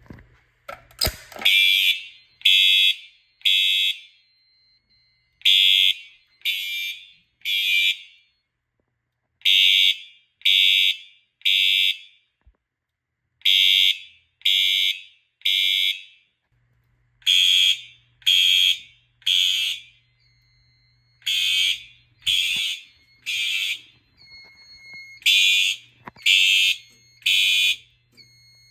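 FCI HE-8F-STW multi-tone horn strobes sounding a harsh buzzing horn in the temporal-3 evacuation pattern: three short blasts, a pause, then three more, repeating about every four seconds. A sharp click comes about a second in, just before the first blasts.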